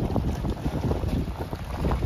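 Wind at the seaside buffeting the microphone in rapid, uneven low rumbles over the wash of the sea.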